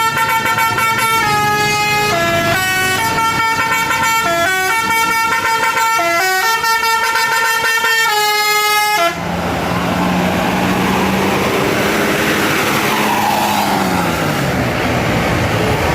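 A tour bus's telolet horn, a set of musical air-horn tones, plays a tune of stepped notes for about nine seconds and cuts off suddenly. Then a bus engine runs amid road noise, its note dropping near the end.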